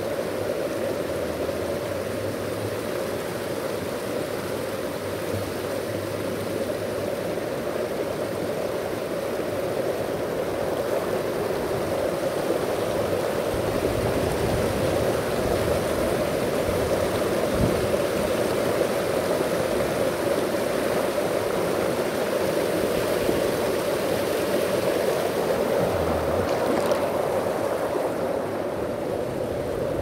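Mountain stream flowing over rocks and small cascades: a steady rush of water, a little louder through the middle.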